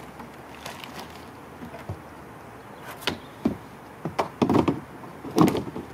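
Plastic barrels knocking and thudding against a canoe as they are set into its barrel slots: a few light knocks, then heavier thuds in the last two seconds.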